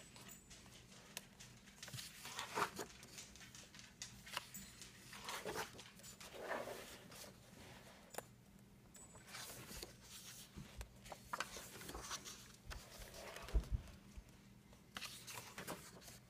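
Heavyweight paper pages of a glue-bound coloring book being turned one after another, each turn a brief papery swish, with small taps of handling in between.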